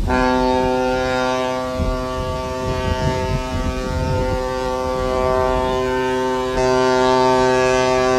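Ship's horn of a classic Matson Line ocean liner sounding one long, steady, deep blast. It grows a little louder about two-thirds of the way through.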